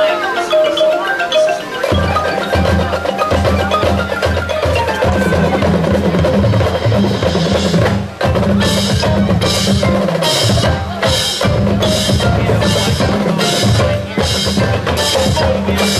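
High school marching band playing a slow ballad. A marimba and mallet-percussion line opens, and the full band comes in with low sustained notes about two seconds in. From about eight seconds a steady percussion beat joins, about two strikes a second.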